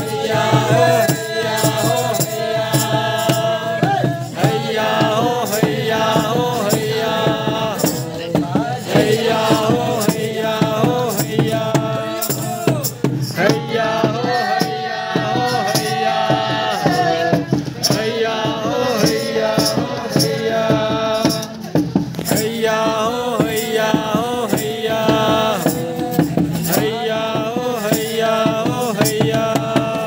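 A song with a singing voice over a steady beat, played loud for the dancing crowd.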